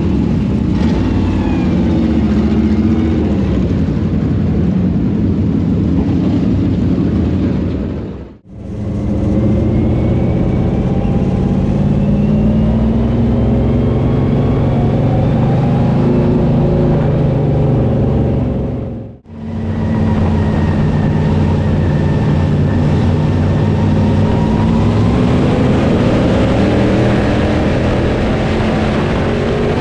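Late model race car engines running hard on the track, their pitch rising and falling as the cars go around. The sound cuts out abruptly twice, about eight and nineteen seconds in.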